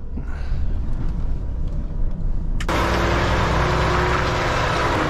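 A lorry's diesel engine running slowly while reversing a box trailer. About two and a half seconds in, a loud steady hiss of engine and yard noise opens up, heard from outside the cab.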